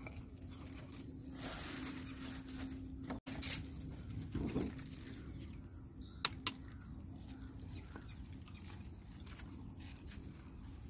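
Outdoor ambience with a steady high-pitched insect buzz. There is soft rustling as a cloth bag of fish is handled, and two sharp clicks about six seconds in.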